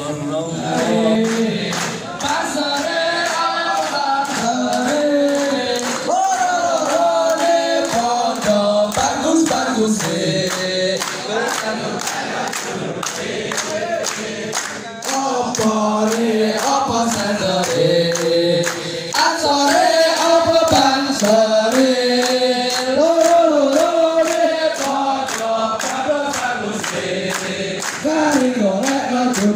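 A large group of men singing together in unison, led by a voice over a microphone, with steady rhythmic hand-clapping in time with the song.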